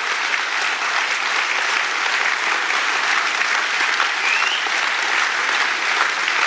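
Audience applauding steadily, a dense even clapping that does not let up.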